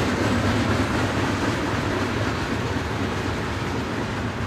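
Union Pacific freight train rolling past: a steady rumble and rattle of freight cars' wheels on the rails, with the low drone of the diesel locomotives slowly fading as they pull away.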